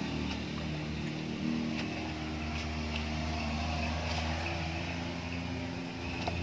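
A kitchen knife chopping chayote on a wooden chopping board gives faint, irregular taps about once a second. A steady engine hum runs under it and is the louder sound.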